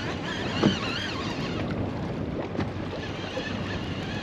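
Wind buffeting the microphone over choppy water around a small boat, with one sharp knock a little over half a second in and a fainter one a couple of seconds later.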